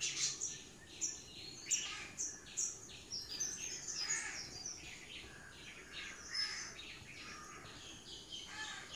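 Small birds chirping: many short, high notes in quick series, some runs stepping downward.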